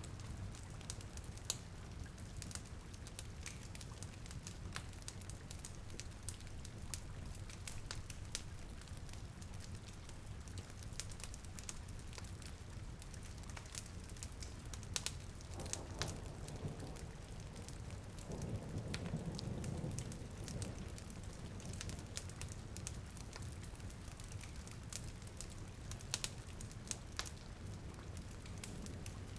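Steady rain mixed with a crackling fireplace, with scattered sharp pops from the fire and a soft low swell a little past halfway.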